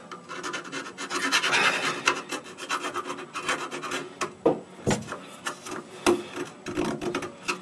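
Hand file scraping back and forth inside an old plastic drain-pipe fitting, in repeated rasping strokes about two to three a second, with a few sharper knocks of the tool against the pipe.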